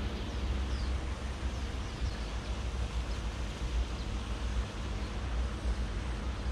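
Steady outdoor wind noise with a low rumble from wind on the microphone, and a few faint, short, high bird chirps scattered through it.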